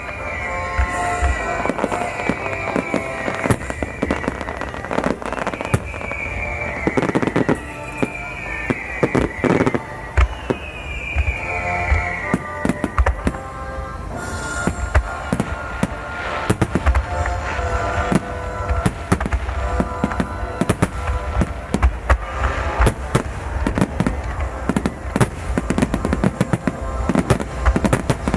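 Fireworks display: many shells bursting in quick, irregular succession, with music playing along.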